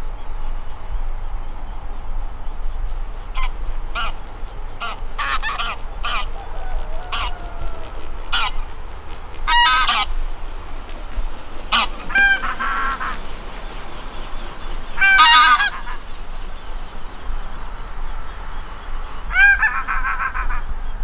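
A flock of greylag geese honking in flight: scattered calls, single and in quick runs, with the loudest honks in the second half. A low steady rumble sits underneath.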